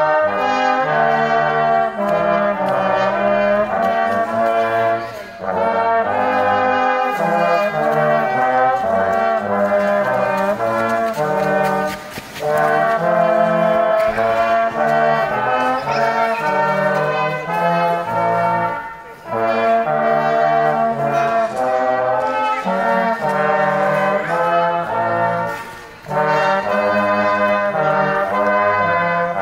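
Brass choir of trumpets and trombones playing together in sustained chords. The music moves in phrases of about seven seconds, with short breaks for breath between them.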